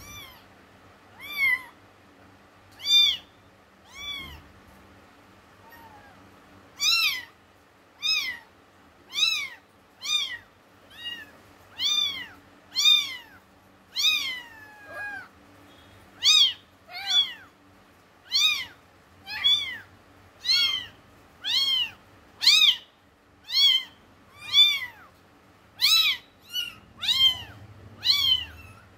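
A ginger kitten meowing over and over: short, high calls about one a second, each rising and then falling in pitch, with a brief pause about five seconds in.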